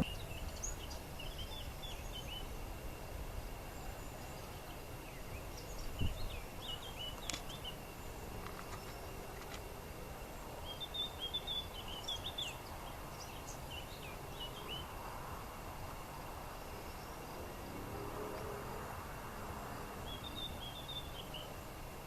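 Quiet outdoor ambience with birds chirping in short twittering bursts several times, over a faint steady high tone and low background noise. There is a single low thump about six seconds in.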